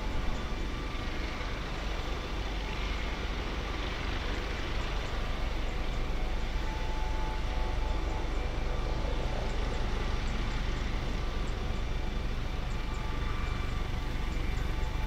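Airbus Helicopters AS365 Dauphin on the ground with its twin turboshaft engines running and main rotor turning: a steady turbine whine over continuous rotor noise.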